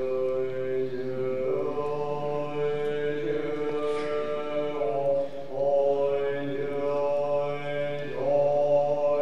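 Tibetan Buddhist monk chanting in a deep voice, holding long notes and stepping from one pitch to the next.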